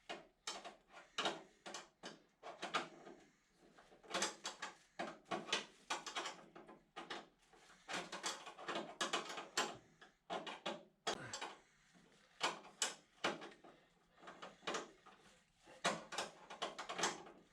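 Irregular clicks, knocks and short rattles of hand work on metal parts: a brake line being routed and fitted along the underside of a VW T3 van.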